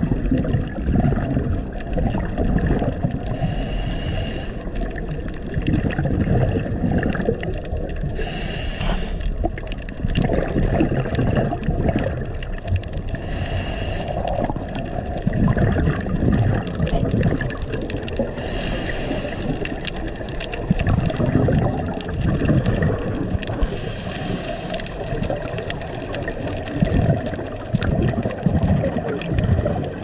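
Scuba breathing heard underwater: a short regulator hiss about every five seconds over a steady low bubbling, gurgling rumble of exhaled air and water noise.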